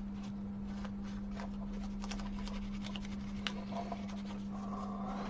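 Small scattered clicks and scratches of fingers handling the parts of an opened TV remote control, over a steady low hum.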